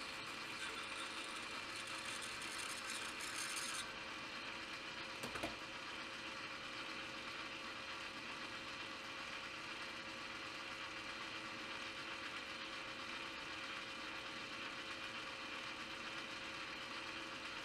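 Metal lathe running steadily with a hum, with some hiss in the first few seconds and a single sharp click about five seconds in.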